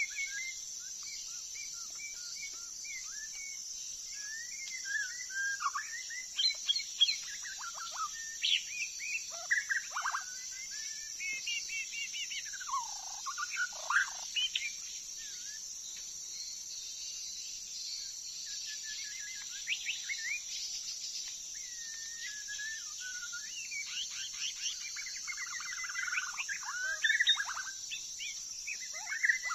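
White-rumped shama singing a string of varied whistled phrases with swooping slurs, in bursts with a quieter spell in the middle, over a steady high-pitched insect drone.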